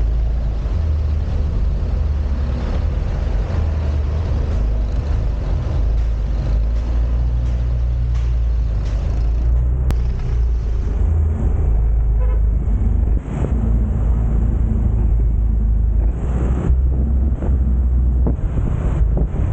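Small motorcycle engine running while riding, its note rising and falling with the throttle, over a heavy low rumble of wind on the microphone.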